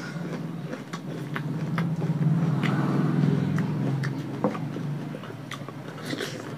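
Eating by hand with rice and fish curry: scattered short smacks and clicks of chewing and fingers working the food, over a steady low buzzing hum that swells louder around the middle.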